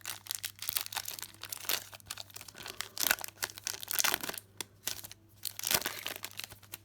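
Foil trading-card pack wrapper crinkling and crackling in irregular bursts as it is handled and worked open by hand.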